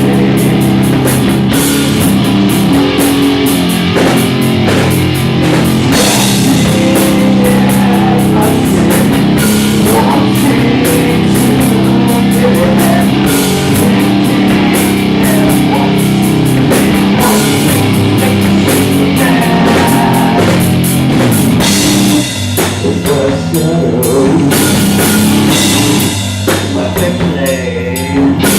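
Live rock band playing an instrumental passage of a song on guitar and drum kit, with a couple of short breaks in the playing near the end.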